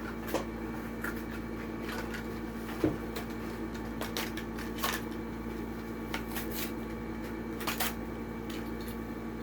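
Plastic blister pack and cardboard backing of a die-cast toy car package crinkling and clicking as it is pried open, in irregular sharp crackles.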